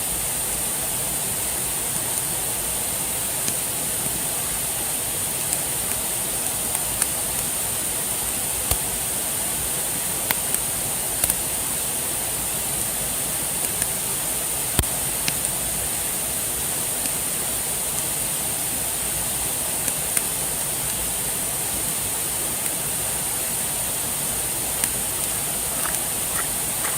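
Campfire crackling, with scattered sharp pops, over a steady rush of flowing water.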